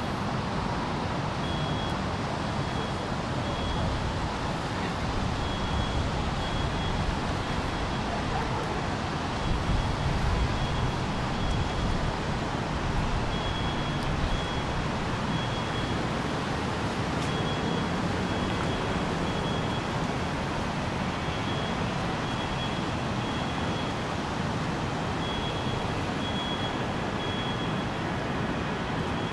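Steady city street traffic with cars passing. A faint, high-pitched beeping comes in short runs every few seconds.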